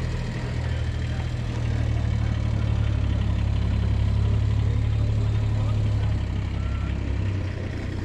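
An engine idling: a steady low rumble that eases off a little near the end.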